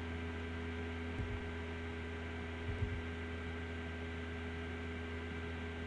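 Steady electrical mains hum picked up by the recording, with two faint low thumps about a second in and near three seconds.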